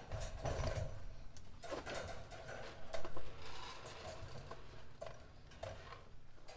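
Handling noises as a rabbit is put into a wire-mesh cage: light rattling and clicking of the wire with rustling, irregular throughout and loudest about three seconds in.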